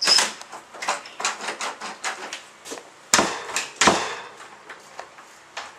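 A series of sharp clicks and knocks on a wooden door as the newly fitted door knob lockset is handled and worked. The loudest knocks come at the start and about three and four seconds in.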